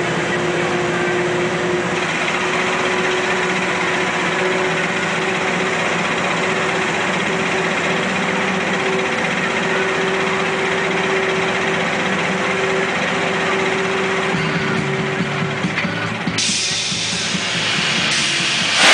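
Hurricane carnival ride running: a steady mechanical hum with a held tone under dense fairground noise. About sixteen seconds in, a loud hiss comes in over it.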